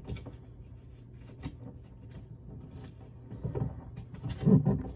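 Origami paper being folded by hand: faint crinkles and rustles, then louder rubbing near the end as the crease is pressed flat.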